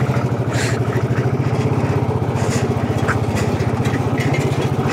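Single-cylinder motorcycle engine running at low, steady revs with an even, rapid pulsing beat.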